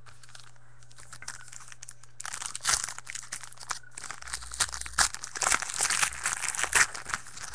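A trading card pack's wrapper being torn open and crinkled by hand, a dense crackling that starts about two seconds in and goes on until near the end.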